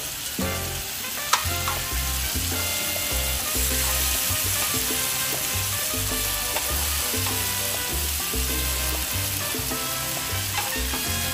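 Galbi beef short ribs sizzling in a grill pan over a portable gas burner, with a sharp click of metal tongs against the pan about a second in. Background music with a bass line plays alongside.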